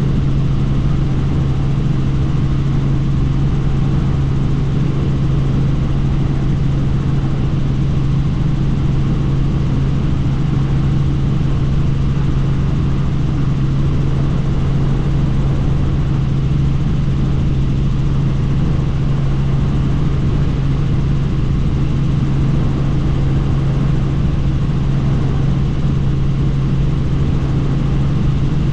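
Helicopter in cruise flight heard from inside the cabin with the doors off: a loud, steady drone with a constant low hum under an even rush of noise.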